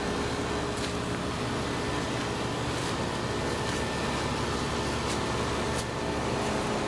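A steady machine hum with a constant whirring noise that holds level throughout, with a few faint ticks.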